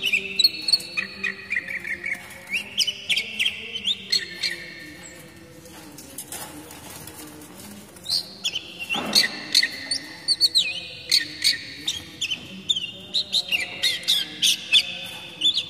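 Oriental magpie-robin singing: a fast run of sharp whistled and chattering notes, breaking off for a few seconds in the middle and then starting again. About halfway through there is a brief flutter of wings as the bird moves about its cage.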